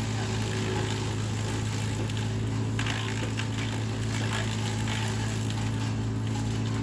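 Vermeer BC700XL wood chipper's engine running steadily at high speed, with a few short bursts of louder rushing noise over the drone.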